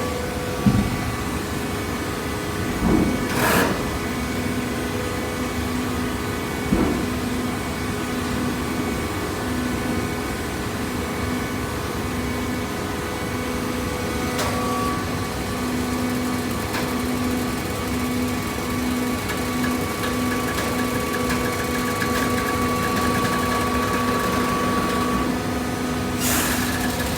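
Hydraulic cardboard baler running: a steady machine hum with a few clunks in the first several seconds and a higher steady whine joining about halfway through.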